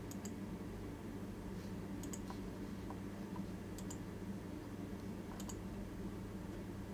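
A computer mouse clicking four times, each a faint quick double tick, spaced a second and a half to two seconds apart, over a low steady hum.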